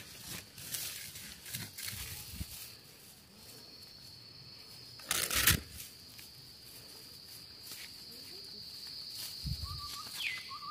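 A stick and fingers scratching and rustling in damp soil, grass and leaf litter while digging up small mushrooms, with one louder brief rustle about five seconds in. A steady high insect drone runs underneath.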